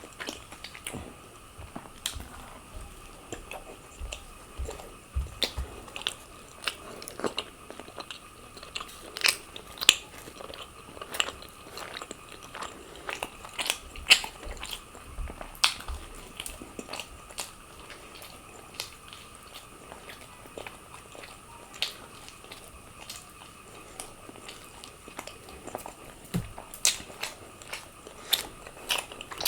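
A person biting and chewing food close to the microphone, with sharp, irregular crisp crunches and mouth clicks.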